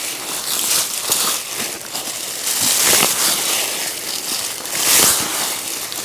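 Dry, frost-killed sweet potato vines and leaves rustling and crackling as they are pulled up and gathered, in several surges.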